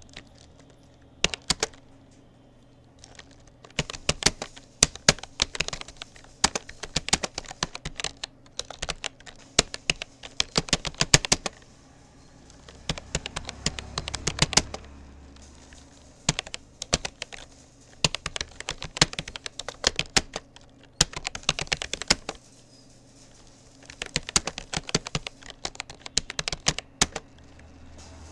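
Typing on a Rapoo computer keyboard: rapid key clicks in bursts of several seconds, broken by a few short pauses.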